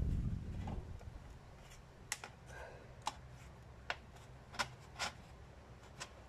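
A thin clear plastic bottle handled in the hands, giving a handful of separate sharp clicks and crackles, about six over the last four seconds. A low rumble fills the first second.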